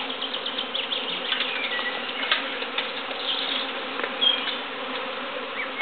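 A large swarm of honeybees in flight all around, giving a steady, dense buzzing.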